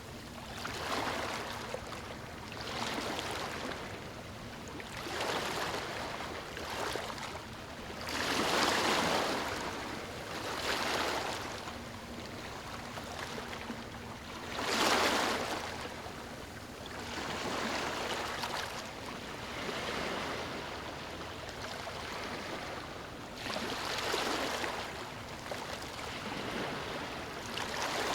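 Ocean waves breaking and washing onto a sandy shore, a swell of surf every two to three seconds, the biggest about halfway through.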